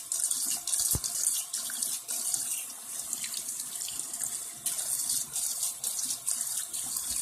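Water from a tap running into a sink, an uneven hiss of splashing water.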